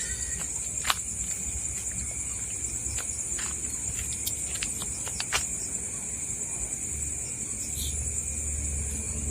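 Crickets chirring in a steady, high-pitched night chorus, with a few scattered sharp clicks about a second in and again between three and five and a half seconds.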